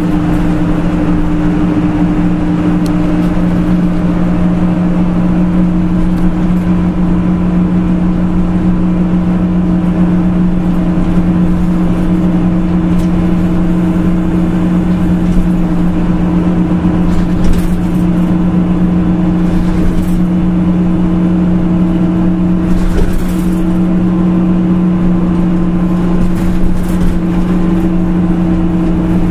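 Nissan Diesel CNG city bus (KL-UA272KAM conversion) running with its engine holding one steady pitch, a constant low hum, with a few faint clicks in the second half.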